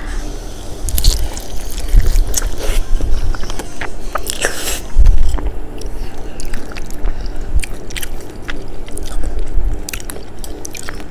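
Biting into and chewing crispy McDonald's fried chicken: the battered skin crackles and crunches in many sharp snaps, with wet chewing in between. The loudest crunch comes about five seconds in.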